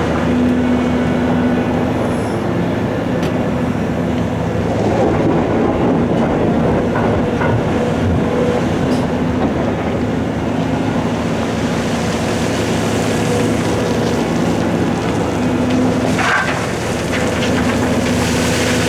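Large diesel engines of heavy quarry machinery, a big excavator and a rigid dump truck, running steadily under work. A few short, sharp knocks are heard.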